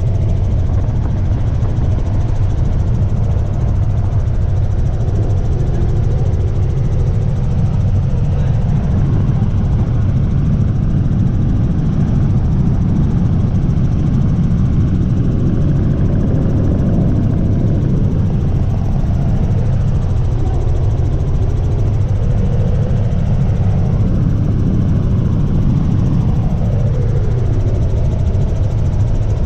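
Helicopter engine and rotor noise: a loud, steady drone that holds unchanged throughout.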